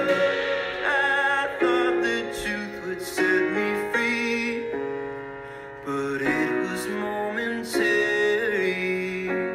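A song with piano and a sung vocal, the voice holding long notes with vibrato.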